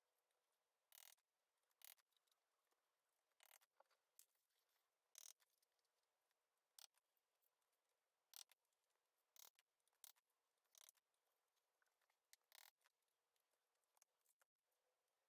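Faint, irregular clicks and short scrapes, about a dozen: hand tools and screws working on the metal deck cover of an electric scooter as the cover is loosened and lifted off.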